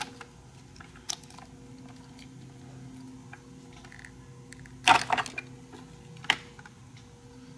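Yamaha R6 tail-section wiring connectors being pulled apart and handled by hand: scattered small plastic clicks and snaps, with a cluster about five seconds in and a single sharp snap a little after. A faint steady hum runs underneath.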